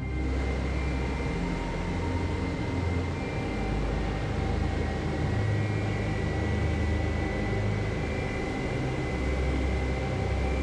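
Airliner on final approach: steady engine noise from a distance, with a faint high whine and an uneven low rumble.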